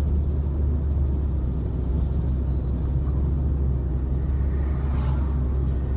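Steady low rumble of a car driving, the road and engine noise heard from inside.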